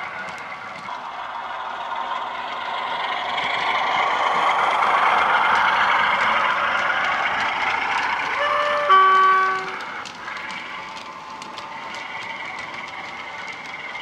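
Sound-decoder recording of a Class 47 diesel engine playing through the model's two megabass speakers. It runs steadily and grows louder as the locomotive approaches. About nine seconds in, a two-tone horn sounds once, high note then low, with light clicking of the model's wheels on the track throughout.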